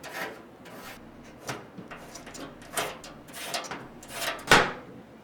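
Side cover of a computer case being slid off: several short scraping slides, the loudest ending in a knock about four and a half seconds in.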